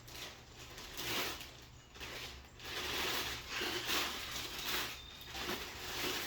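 Plastic bag crinkling and rustling in irregular swells as it is handled and pulled off a foam model jet fuselage.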